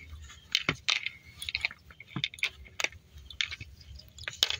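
Hands pressing and kneading a crumbly biscuit-crumb dough on a plastic plate: irregular soft squishes with scattered light clicks, as the dry crumbs are pressed firmly together to bind them.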